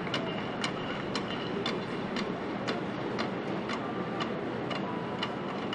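Steady sharp clicks about twice a second, an even marching tempo, over the steady hubbub of an open stadium.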